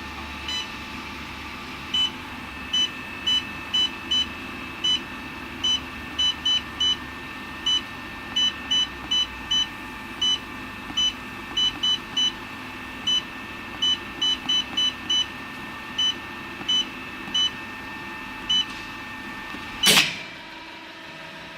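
Control panel of a CNC angle steel production line beeping with short, identical high beeps at an uneven pace of about two a second, as its keys are pressed, over a steady machine hum. Near the end there is one loud, short burst of noise.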